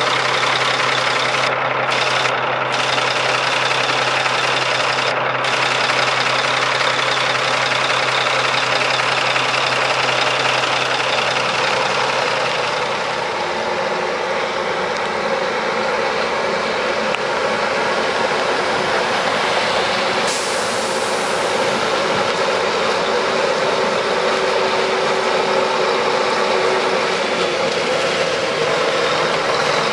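1992 Mack RD600 dump truck's EM6-300 six-cylinder diesel idling steadily, heard up close at the open engine bay. About thirteen seconds in the sound changes to the same truck running as it drives across the yard, heard from further off and coming closer.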